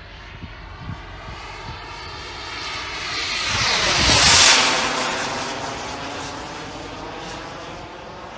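Turbine of a Sebart Avanti S model jet whining as the plane makes a fast pass, growing louder to a peak a little past four seconds in, then fading, its pitch dropping as it goes by.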